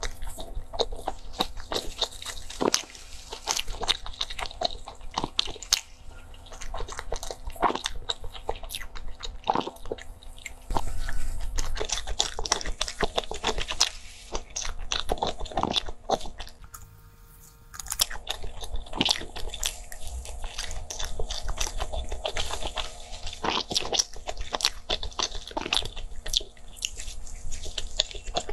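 Close-miked biting and chewing of a soft, crumbly pastry topped with meat floss: many sharp crunches and crackles. There is a brief lull a little past the middle.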